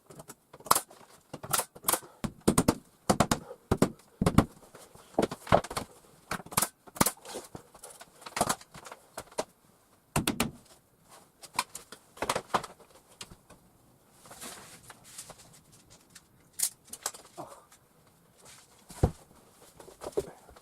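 An irregular run of sharp knocks and clacks, often two or three close together, with a quieter stretch about two-thirds of the way through and a single hard knock near the end.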